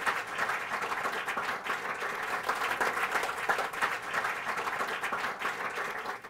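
Audience applauding steadily, many hands clapping at once: the applause that closes a talk.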